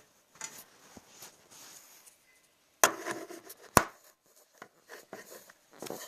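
Dog food being dished out by hand: scraping and rustling handling noises, with two sharp knocks about a second apart near the middle, the loudest sounds.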